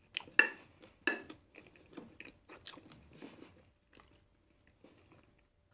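A person chewing a mouthful of food, with irregular soft crunching and mouth noises that thin out near the end.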